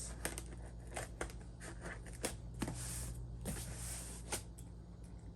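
Cardboard packaging of a computer monitor being opened by hand: scattered clicks and several short scraping, rustling bursts of cardboard and packing. The box is hard to open.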